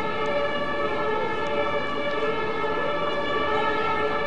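A loud, steady drone of several tones held together, with no rise or fall in pitch.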